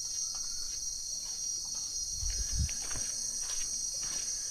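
Steady, high-pitched chorus of insects in the forest, with faint scattered clicks and a brief low rumble a little past two seconds in.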